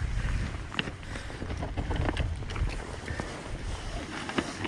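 Wind rumbling on the microphone, with light rustling and scattered clicks from handling as a plastic fish-measuring mat is spread over rocks and a bass is laid on it.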